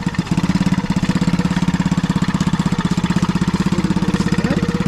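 Quad bike (ATV) engine running steadily with a fast, even beat.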